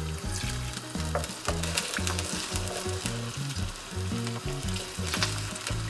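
Potato pieces and sliced spring onion frying in oil in a non-stick wok, sizzling and crackling as mussel cooking water is poured in, with a wooden spoon stirring through them.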